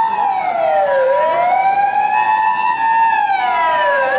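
Emergency vehicle siren wailing in city traffic: one slow wail that falls, climbs back up over two or three seconds, and falls again near the end, with a steady higher tone held underneath.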